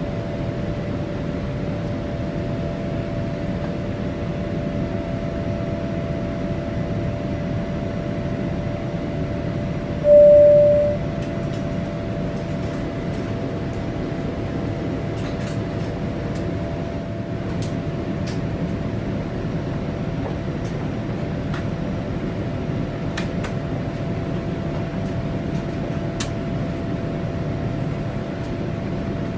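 Boeing 787-8 passenger cabin noise: a steady rushing hum with a constant whine running through it. About ten seconds in, a single loud chime sounds for under a second and fades.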